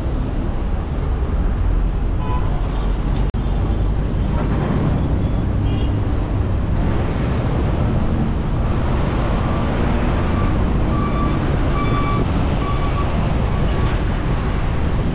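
Car driving along a highway: steady road and engine noise, heaviest at the low end, with a brief click about three seconds in and a few faint short tones later on.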